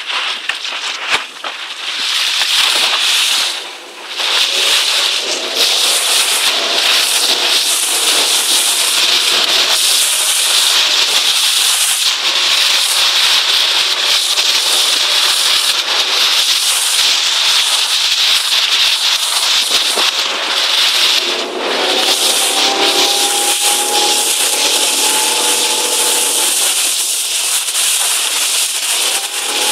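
Rushing water and spray hissing past a fast-sailing RS800 racing dinghy, with crackling wind buffeting on the microphone. A faint humming tone rises in about five seconds in, fades, and returns more strongly in the second half.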